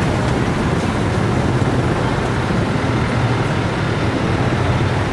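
Busy city street traffic, mostly mopeds and small motorbikes running past, making a steady, even mass of engine and road noise.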